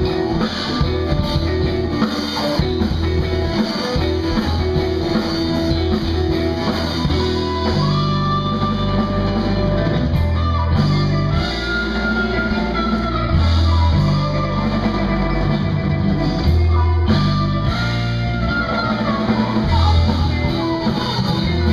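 Live band playing: electric guitar and bass guitar together, the bass moving through a line of changing notes under a guitar line with some sliding notes.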